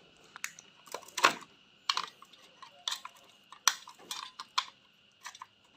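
Irregular light clicks and knocks from a cordless metal-cutting circular saw's plastic housing and metal parts being handled. The saw's motor is not running.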